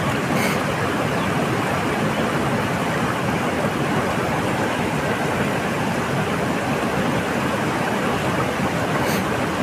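Rushing mountain river running over rocks in rapids, a steady, even noise of white water. A faint tick comes just after the start and another near the end.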